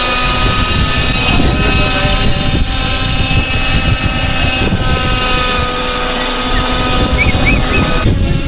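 Radio-controlled model helicopter flying overhead: a steady whine of many stacked tones over the rushing noise of its rotors. The whine cuts off abruptly near the end.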